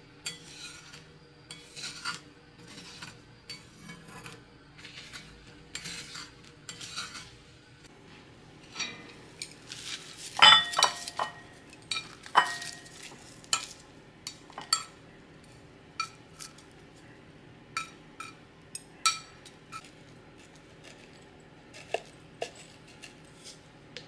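Metal chopsticks stirring and scraping scrambled eggs in a stainless-steel frying pan, a quick run of short strokes. About ten seconds in come several loud ringing clinks of the pan and chopsticks against a ceramic bowl as the eggs are scraped out, then scattered light taps.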